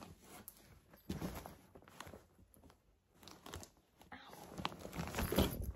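Clear plastic zip-up rug bag crinkling and rustling as it is handled and lifted, in uneven bursts that are loudest near the end.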